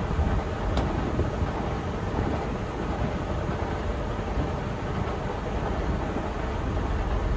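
Tractor unit's diesel engine running close by, a steady low rumble, with one sharp click about a second in.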